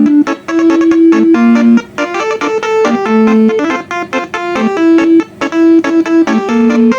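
Twelve-note 'telolet basuri' multi-trumpet bus horn set playing a quick melody from a MIDI file, each horn sounding a steady note with short gaps between notes.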